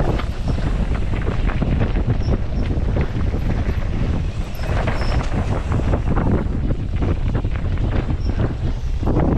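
Wind buffeting the microphone during a fast mountain-bike descent on a dirt trail, over a constant low rumble with a stream of quick knocks and rattles from the bike going over the rough ground.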